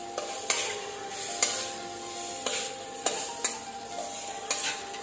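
Spatula scraping and knocking against a stainless steel wok as rice is stirred, with short strokes about once a second and a light sizzle underneath.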